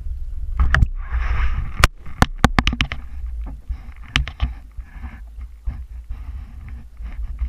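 Sea water sloshing and gurgling around a waterproof camera housing as it breaks the surface and rides at the waterline, over a steady low rumble. A string of sharp knocks and clicks comes mostly in the first three seconds.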